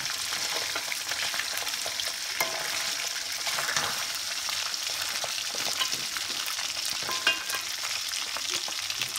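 Eel pieces deep-frying in hot oil in a wok: a steady sizzle full of small crackles, with a couple of light clicks about two and a half and seven seconds in.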